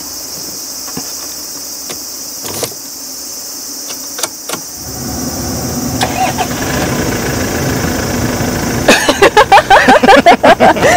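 Toyota Land Cruiser 70 reissue's four-cylinder turbo-diesel being started. A few short clicks, then a little before halfway the engine catches and settles into a steady idle. Crickets buzz throughout, and voices come in near the end.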